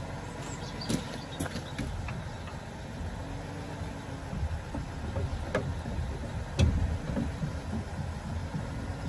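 Trailer hitch and jockey-wheel crank being worked by hand: a few sharp metal clanks and knocks, the loudest about six and a half seconds in, over a steady low hum of the pickup's engine idling.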